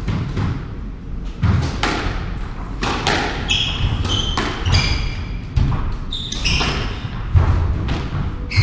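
Squash rally: the ball struck by rackets and knocking off the walls, about one sharp knock every second or so, with short high squeaks of court shoes on the wooden floor.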